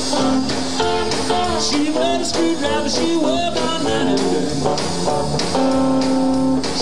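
Live blues-rock band playing, with electric bass and electric guitar; a long held note sounds over the band about five and a half seconds in.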